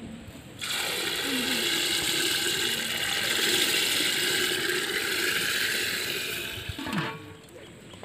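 Dry rice grains poured from a bowl into an aluminium pot of water: a steady pattering pour that starts about a second in and tails off near the end, closed by a short knock.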